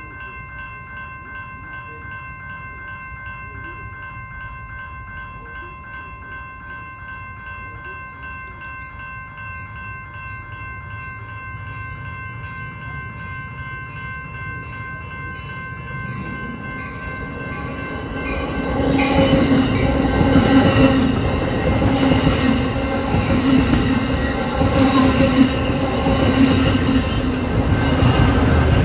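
Grade-crossing warning bell ringing steadily, then an Amtrak Pacific Surfliner passenger train approaches and passes close by. Its rumble and wheel noise build from about halfway in and are loud for the last ten seconds as the Siemens Charger diesel locomotive goes by.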